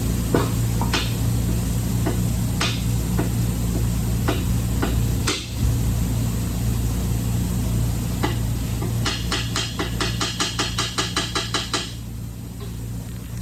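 Scattered metal clinks and knocks of hand tools on bolts, then a ratchet wrench clicking rapidly for about three seconds, near the end. A steady low hum runs underneath.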